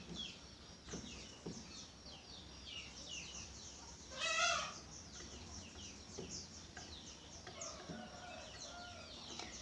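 Birds chirping over and over in short, high notes, with one louder, longer call from a chicken about four seconds in. A few faint clicks sound in the first two seconds.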